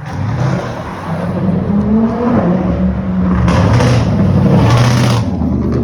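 Supercars driving past on the road, engines revving, with one passing loudest from about three and a half seconds in to just after five seconds.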